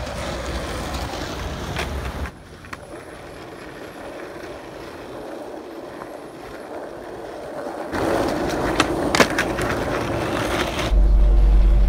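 Skateboard wheels rolling over asphalt and concrete pavement, a continuous rough rolling noise that drops to a quieter stretch about two seconds in and gets louder again about eight seconds in, with a couple of sharp clicks from the board. A loud low rumble comes in near the end.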